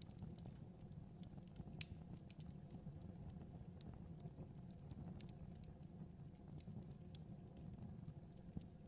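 Wood fire in a fireplace crackling faintly: scattered sharp pops and ticks at irregular moments over a steady low rumble.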